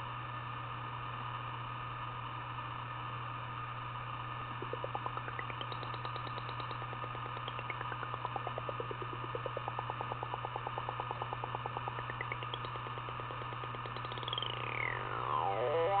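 Home-built Auduino granular synth (Arduino with knob-controlled potentiometers): a buzzy tone made of rapid pulses that sweeps up and down in pitch as the knobs are turned, starting a few seconds in over a steady electrical hum and hiss. Near the end it makes a loud falling glide.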